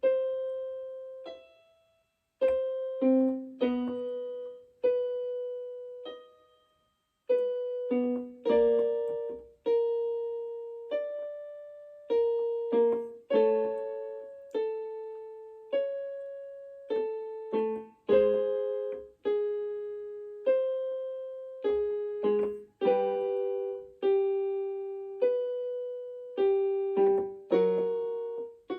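Electric keyboard playing a singing-exercise accompaniment in a piano sound: short groups of notes struck about once a second, each fading away, moving up and down step by step in a middle register.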